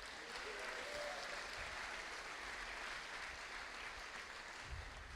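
Audience applauding: a steady patter of many hands clapping that slowly dies away near the end.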